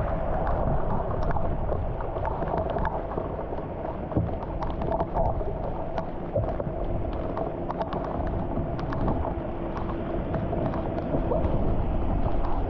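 Steady rain falling on a flooded street, with many small drop ticks over a constant hiss and wind rumbling on the microphone.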